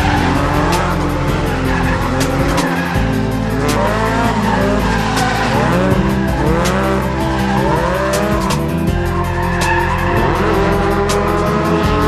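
A Toyota AE86 Corolla coupe drifting, its engine revving up and down again and again with its tyres squealing as it slides. Background music with a steady beat plays under it.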